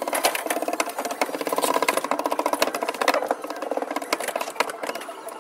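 Cordless power drill running in bursts with a fast pulsing buzz, driving screws to fasten the storm door's frame.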